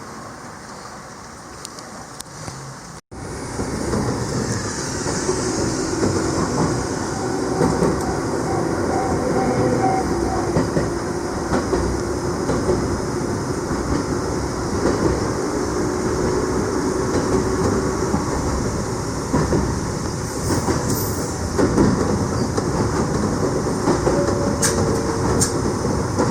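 Gakunan Railway electric train running along the track: a steady loud rolling rumble of wheels on rail with faint droning tones, starting abruptly after a cut about three seconds in.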